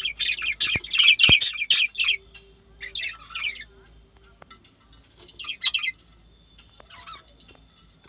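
Budgerigars chirping in rapid, high-pitched chattering bursts: a long loud run over the first two seconds, then shorter bursts about every two seconds.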